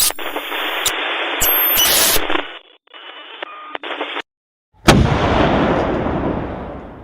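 Thin, radio-like hiss confined to a narrow middle band that fades and cuts out, followed about five seconds in by a sudden loud boom that dies away over about two seconds.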